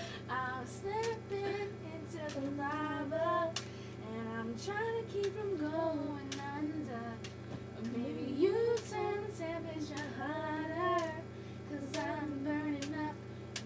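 Girls singing a rhythmic chant, with sharp hand claps throughout, typical of a hand-clapping game.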